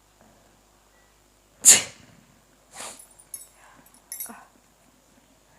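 A woman sneezes once, sharply and loudly, about a second and a half in, set off by a toothpick tickling inside her nose. Softer breathy noises and small scratchy sounds follow.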